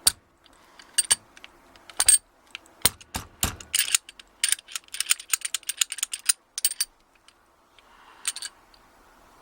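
Sharp metallic clicks and rattles from a padlock being worked on to free a loose retaining pin inside its body, with a quick run of many clicks in the middle.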